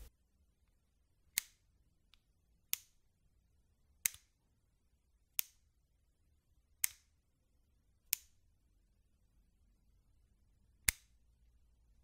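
Springfield Armory 1911 pistol's steel action clicking: seven sharp, single metallic clicks about one every 1.3 seconds, with a longer pause before the last.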